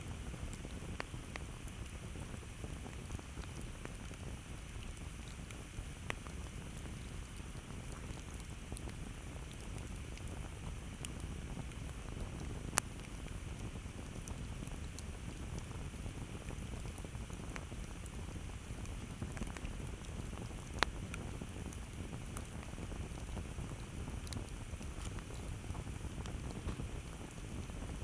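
Campfire burning: a steady low rumble of flames with scattered sharp crackles and pops of burning wood, two louder pops about 13 and 21 seconds in.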